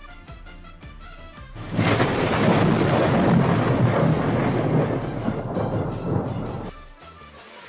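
Quiet background music, then a loud rushing, rumbling noise starts suddenly about two seconds in, runs for about five seconds and cuts off abruptly.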